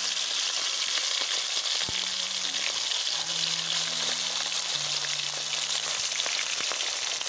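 Whole marinated quail deep-frying in hot oil in an iron kadai: a steady, dense sizzle.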